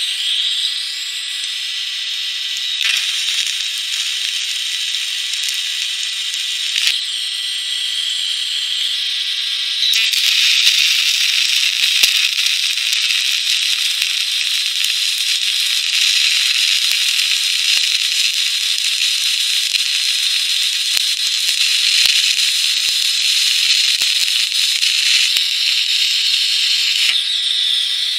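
TIG welding arc on steel plate with filler rod fed by hand: a steady crackling hiss with a faint high whine, getting louder about ten seconds in.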